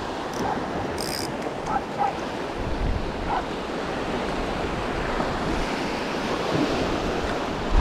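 Ocean surf washing steadily onto a beach, swelling a little about halfway through, with wind buffeting the microphone.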